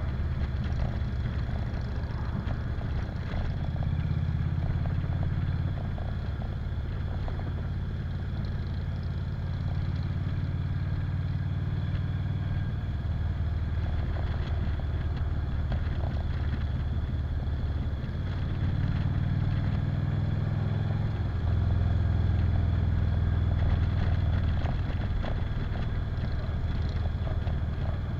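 Cruiser motorcycle engine running under way, heard from the rider's seat: a steady low drone that steps up and grows louder for stretches a few times as the throttle changes.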